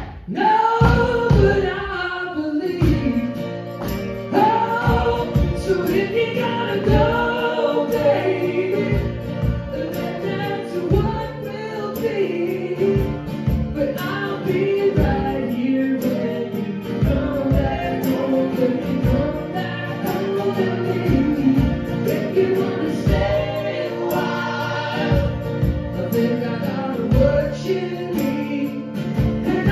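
Live folk-rock band playing a song: strummed acoustic guitars, mandolin and drums under group vocal harmonies.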